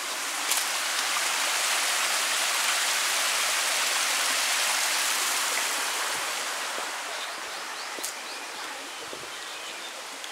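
Stream water rushing through a stone channel, a steady hiss that grows louder in the first couple of seconds and fades over the last few.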